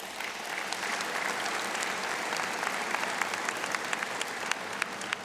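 A large audience clapping in a big hall. The applause builds over the first second or two and begins to die down near the end.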